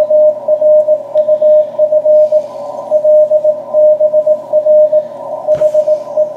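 Morse code (CW) on the 40-metre band from the shortwave transceiver: a single steady beep keyed on and off in dots and dashes over a narrow band of receiver hiss. A short knock about five and a half seconds in.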